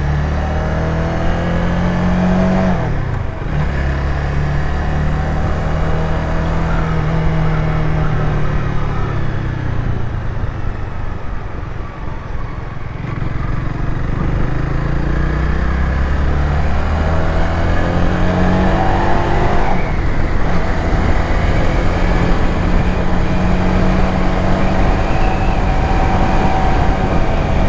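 Honda Rebel 300's single-cylinder engine under way with wind noise, pulling up in pitch through the gears. It drops at a gear change about three seconds in, eases off around ten to thirteen seconds, then climbs again and holds steady.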